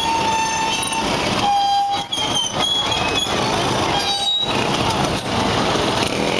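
Busy street din from a crowd and traffic, with short, high horn toots sounding over it several times in the first half.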